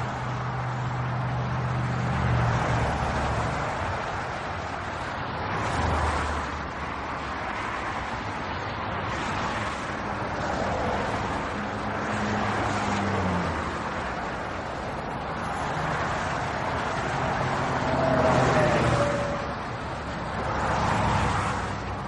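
GRIKEY handheld car vacuum cleaner running with a steady rushing suction and motor hum; the hum changes pitch a few times as the nozzle is loaded against objects and picks them up.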